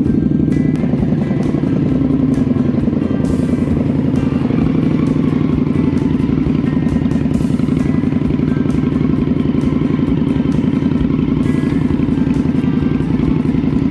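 Motorcycle engine running steadily with a fast, even pulsing; its pitch eases slightly in the first couple of seconds.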